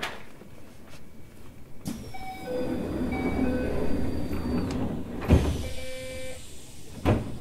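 Keisei 3000-series commuter train's sliding passenger doors working at a station stop, heard from inside the car. A repeated chime sounds while the doors move, and there is a loud thud about five seconds in and another near the end.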